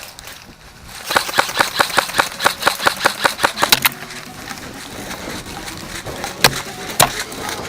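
Airsoft gunfire: a quick string of about fifteen sharp shots at roughly five a second, then two single, louder shots near the end.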